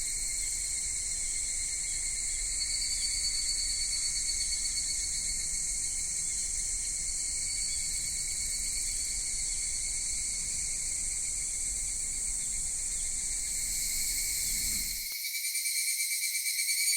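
A dense chorus of cicadas, shrilling steadily and overlapping. About 15 seconds in, the sound cuts to a different recording where a pulsing, rhythmic cicada call takes over.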